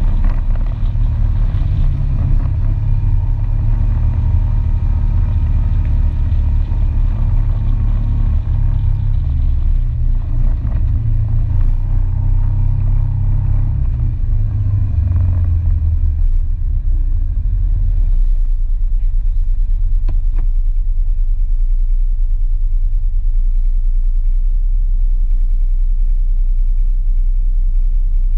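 ATV engine running while driving over a dirt track, a loud low rumble. About two-thirds of the way through it settles into a lower, steadier hum.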